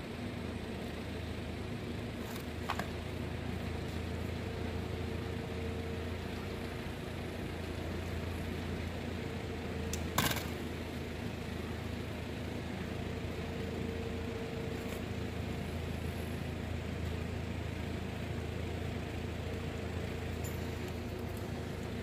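Steady low mechanical hum of the shop, with small clicks of wire being handled: a light one about three seconds in and a sharper, louder one about ten seconds in.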